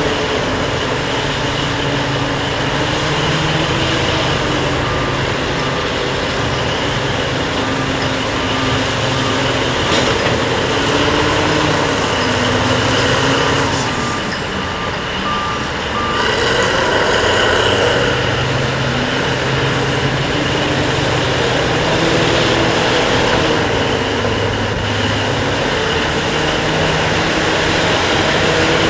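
Heavy mining machinery working together: the loading shovel's motors and the diesel haul truck and front-end loader running in a steady din, with whines that rise and fall as the machines swing and move. A backup alarm beeps steadily through the first half.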